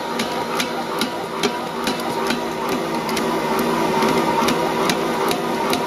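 Ankarsrum Assistent Original stand mixer running at its top speed, kneading a 1 kg-flour bread dough. Its motor hums steadily under a rhythmic knocking, about two to three knocks a second, as the spinning dough mass is flung against the roller and the steel bowl.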